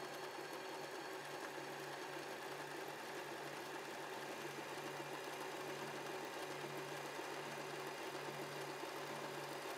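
W6 N 1800 mechanical sewing machine running steadily, sewing an overlock stitch through stretchy fabric.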